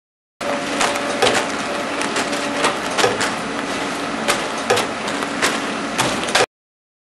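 Robotic packing machinery handling pork scratchings: a steady machine hum under irregular crunching and sharp clattering clicks. It starts and cuts off abruptly.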